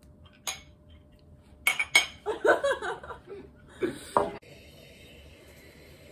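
Mugs clinked together in a toast: two sharp clinks about two seconds in, then laughter and another knock or two. Near the end the sound cuts abruptly to a steady room hiss.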